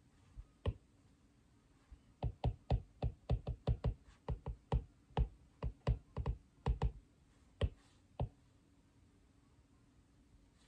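Apple Pencil tip tapping and clicking on an iPad's glass screen while writing notes: one tap under a second in, then a run of irregular taps for about six seconds that stops near the end.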